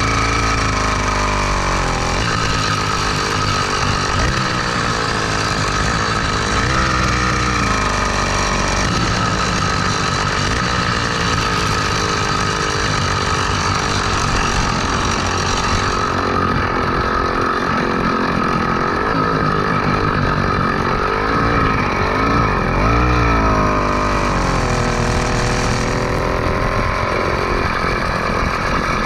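Small two-stroke motorized-bicycle engine fitted with a speed carburetor running under throttle, its pitch rising and falling repeatedly as the revs change.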